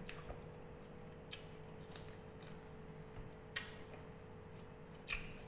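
Eating sounds: chewing, with a few soft lip smacks at irregular intervals, the loudest about three and a half and five seconds in, over a faint steady hum.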